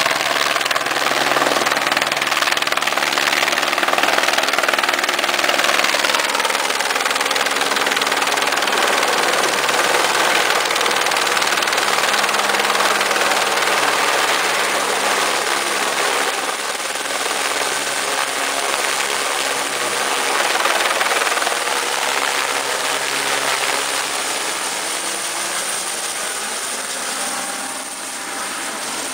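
Police helicopter flying low overhead: a steady, loud rhythmic rotor chop over engine whine, its pitch drifting slowly as it circles, easing off a little near the end.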